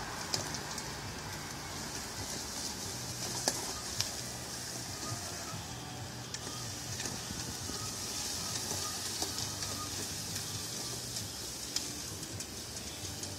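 Robotic lawnmower's drive motors running with a low hum as it carries a rider slowly over grass, under a steady high-pitched hiss, with a few sharp clicks.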